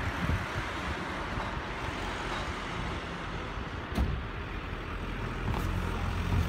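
Car park traffic noise: vehicle engines running nearby over a steady low rumble, with a sharp knock about four seconds in.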